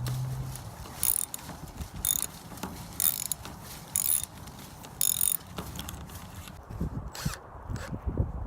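A hand tool worked in short, regular strokes about once a second, each a brief rasping, clicking burst, then quieter irregular knocks near the end.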